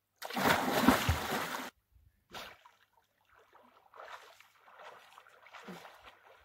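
A swimmer plunging into lake water with a loud splash lasting about a second and a half, then a short splash and softer, irregular splashing from swimming strokes.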